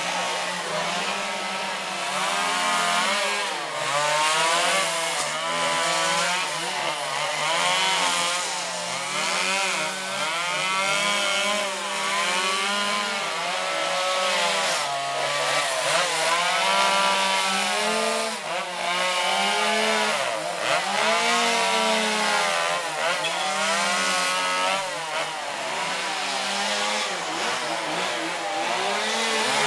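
Gas chainsaws carving wood, their engines revving up and down without a break, the pitch rising and falling every second or so.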